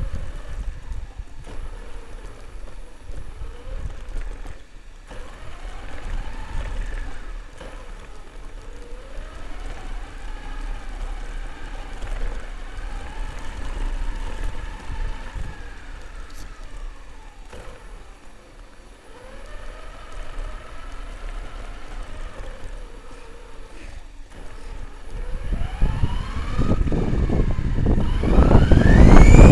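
Himoto RC car's upgraded electric motor whining, its pitch rising and falling in repeated arcs as the throttle is worked, over a low rushing noise. Near the end the whine climbs steeply and gets much louder as the car accelerates hard.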